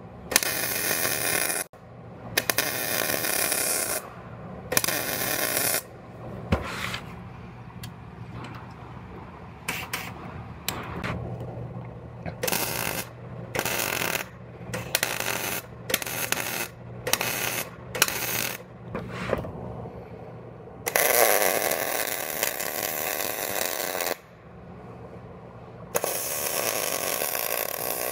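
MIG welder arc crackling and hissing as a replacement frame rail section is welded in, in bursts that start and stop sharply: a few runs of one to three seconds and many short bursts under a second.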